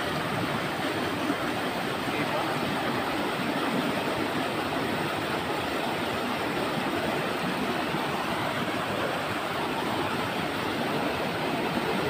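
Shallow river rushing over rocks: a steady, even rush of water with no breaks.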